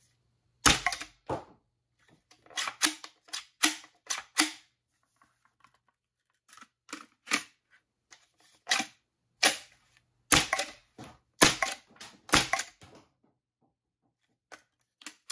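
A 3D-printed HPA (high-pressure air) bullpup Nerf blaster firing about twenty shots. Each shot is a sharp pop of compressed air released through its solenoid-valve HPA core, and the shots come singly and in quick pairs with short pauses between groups.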